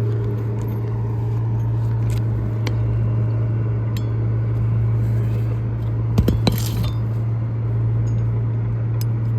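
A few light metallic taps and clinks as roofing nails are set under the shingles by hand with a hatchet, the loudest pair about six seconds in, over a steady low hum.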